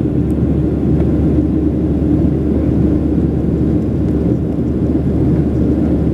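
Steady low drone of jet engines and rushing air inside a passenger airliner's cabin during the climb after takeoff.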